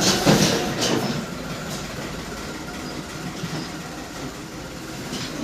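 Sansui 7 kg fully automatic washing machine running: a steady mechanical noise, with some louder clatter in the first second.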